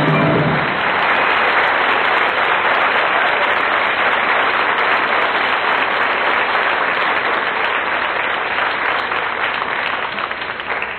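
Audience applauding after a piano number, fading away near the end. The last notes of the piano die out right at the start.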